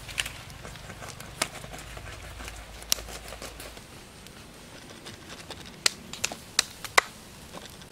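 Crisp roasted crocodile skin cracking and crunching as it is cut with a knife and pulled apart by hand: a scatter of sharp, irregular cracks, with a loud cluster about six to seven seconds in.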